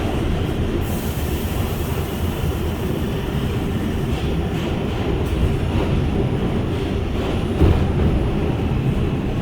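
An R142 subway car running through the tunnel, heard from inside the car: a steady rumble of steel wheels on rail with a few faint clacks. There is a single louder thump about seven and a half seconds in.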